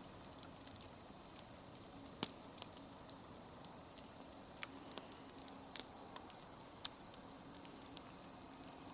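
Large wood campfire burning, with faint irregular crackles and sharp pops from the burning wood.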